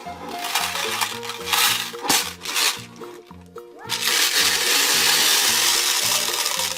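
Toy blender whirring and rattling in short bursts, then running steadily from about four seconds in, over cheerful background music.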